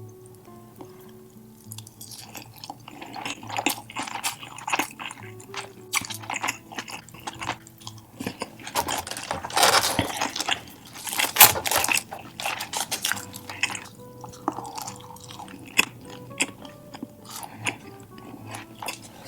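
Close-miked chewing and crunching of food, loudest in a run of crunches around the middle, over soft background music.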